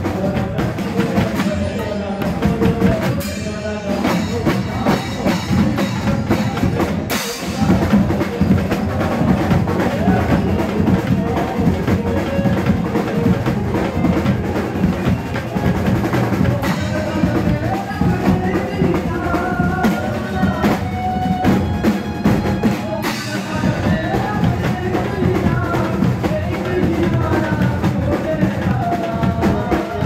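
Live Gujarati garba music played through a PA: a male singer on a microphone over a steady driving beat on drums and keyboard.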